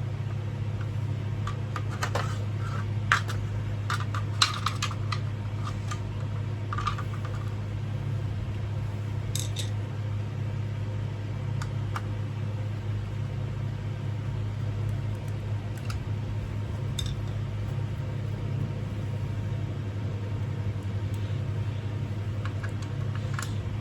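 Small metal parts of ceiling fan blade hardware clinking and clicking as the blades are put together. The clicks are scattered, most of them a few seconds in, over a steady low hum.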